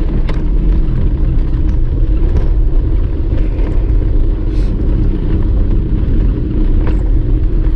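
Jeep Wrangler JKU running on a dirt mountain trail, heard from inside the cab: a steady low engine and tyre rumble with a few light knocks and rattles.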